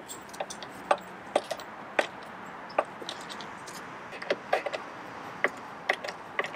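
Irregular sharp clicks and ticks from a hand screwdriver driving screws down into the plastic inserts of a top-case mounting plate, over a steady faint hiss.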